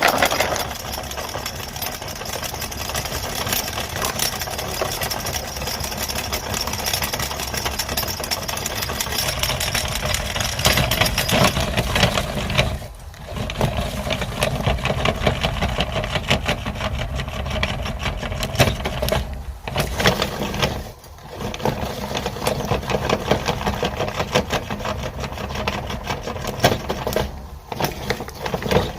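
Electric meat grinder running, crunching plastic Ludo dice with a dense crackling grind, cutting out briefly four times.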